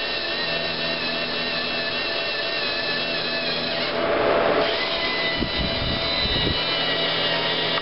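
LEGO NXT servo motors of a robotic arm whirring steadily as the arm moves, a drill-like whine of several held tones. A burst of rushing noise comes about four seconds in, followed by a low rumble.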